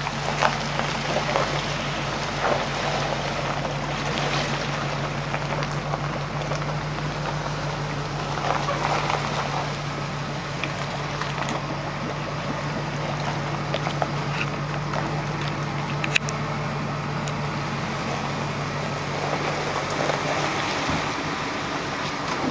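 Engine of a 4x4 pickup truck running at a steady low idle while it backs a boat trailer down a launch ramp; the hum drops away near the end.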